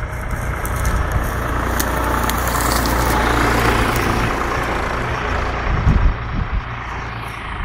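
New Holland TT55 tractor's diesel engine running steadily under load as it pulls a plough through the soil, growing louder toward the middle and easing off near the end.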